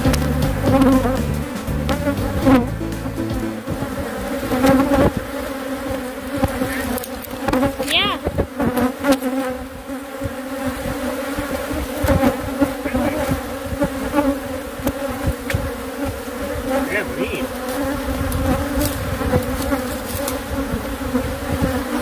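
A swarm of Africanized honey bees (killer bees) buzzing steadily around their hive in an irrigation pipe, a loud, even hum. Now and then a single bee whines past close by, its pitch sliding up and down.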